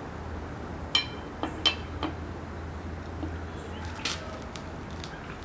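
A metal lug wrench clinking against a wheel's lug nut as it is fitted and turned to tighten the nut. There are a handful of sharp, briefly ringing clinks, three close together about a second in and one more about four seconds in.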